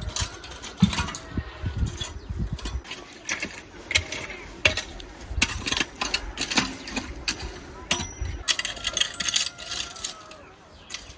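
Soil and small stones being scraped and worked over to cover freshly sown flower seeds: irregular scraping, gritty clicks and light knocks, with a few dull thumps in the first few seconds.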